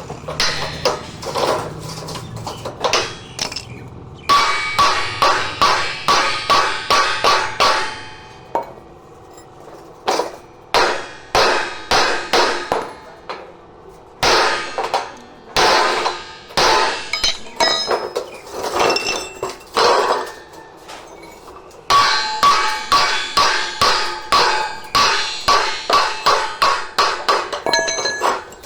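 Hammer striking metal in quick runs of blows, about three a second, each blow with a short metallic ring, the runs broken by brief pauses.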